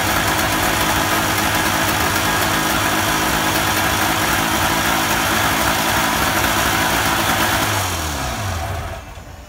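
Freshly rebuilt Goggomobil 400 cc air-cooled two-stroke twin running steadily on a test stand, fed premix and running a little rich on oil. About eight seconds in it is shut off, and its pitch falls as it winds down to a stop.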